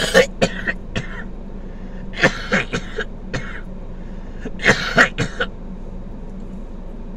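A man coughing hard in three short fits, several coughs each, muffled into his sleeve: a coughing reaction to a harsh hit from a cannabis vape cartridge.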